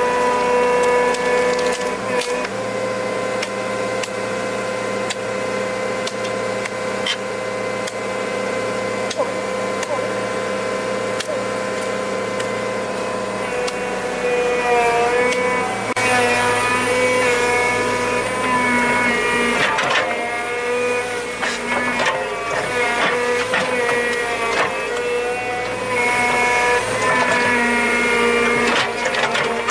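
A motor or small engine running steadily at a near-constant pitch, dipping slightly now and then, with scattered knocks and clicks over it in the second half.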